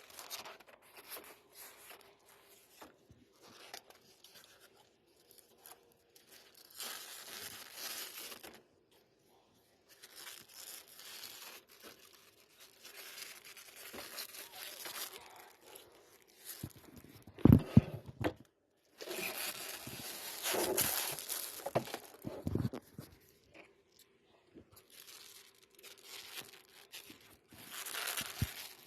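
Packaging being handled, crinkled and torn open, in irregular stretches of rustling as a full-size mouse pad is unboxed. A few sharp thuds come a little past the middle.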